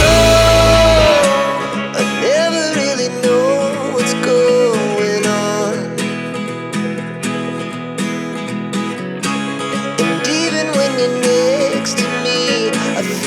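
Background music: a song with a sung or melodic line over plucked guitar and a steady beat, with a lighter section starting about a second in.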